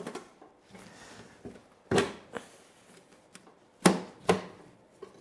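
Sharp knocks on a Lambretta's metal side panel as it is tugged and struck by hand to work it free: two pairs of knocks about two seconds apart, with a few lighter taps between. The panel is stuck.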